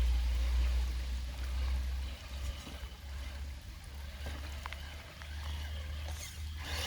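Low wind rumble on the microphone, loudest in the first two seconds, over a steady wash of running water, with a couple of faint ticks about four and a half seconds in.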